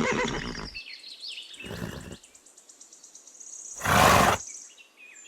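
Pony blowing hard through its nostrils three times, short breathy snorts with the last one, about four seconds in, the loudest, over faint birdsong.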